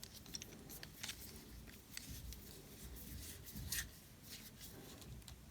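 Faint handling sounds of a metal tactical ring being twisted onto a flashlight's tail: light scrapes and small clicks, the loudest a little under four seconds in.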